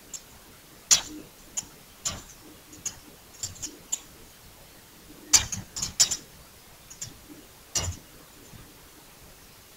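Computer keyboard keys clicking in short, irregular runs as code is typed, with a few sharper, louder clicks among them.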